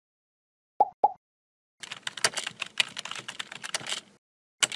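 Two short blips, then a quick, rapid run of computer keyboard typing lasting about two seconds, and a single sharp click near the end.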